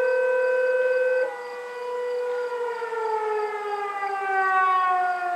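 Outdoor warning sirens sounding in a fire siren test. A loud steady siren tone stops abruptly about a second in, while another siren winds down, its pitch falling slowly.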